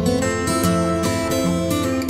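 Background music led by a strummed acoustic guitar, with held chords and a steady strumming rhythm.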